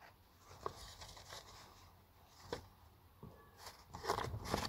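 Sheets of paper being leafed through and handled: soft, scattered rustles and taps, with a busier patch of rustling near the end.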